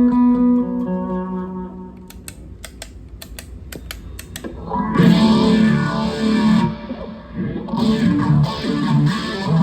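Electric guitar played through a NUX Cerberus multi-effects pedal. Held notes ring out and fade, then come a few sharp muted-string clicks, then two bursts of distorted strummed chords, the second ending near the end.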